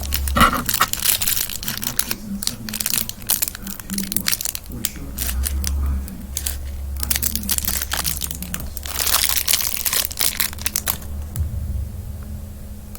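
Plastic packaging crinkling and tearing as a small fidget toy is unwrapped by hand, in irregular stretches of rustling that are busiest about nine to eleven seconds in.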